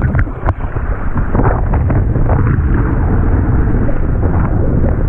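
Heavy wind buffeting the microphone while a windsurf board planes fast over choppy sea, with water rushing and spraying off the board and a few sharp splashing knocks against the hull.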